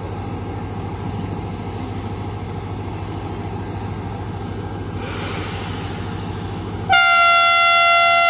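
Diesel-electric locomotive idling with a steady low throb, and a short hiss about five seconds in. About seven seconds in, the locomotive's horn sounds one loud, sustained blast as the train departs.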